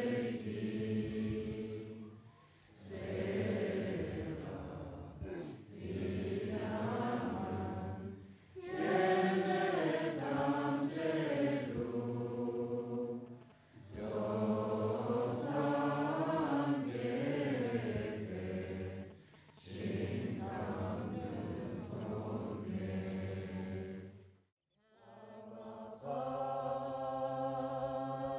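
A group of voices chanting together in unison, in long sustained phrases broken by short pauses every few seconds.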